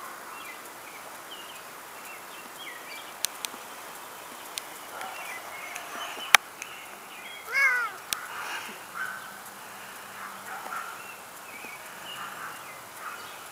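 A cat meows once, a single rising-and-falling call about seven and a half seconds in, over faint birdsong of scattered short chirps. A few sharp clicks stand out, the loudest a little after six seconds.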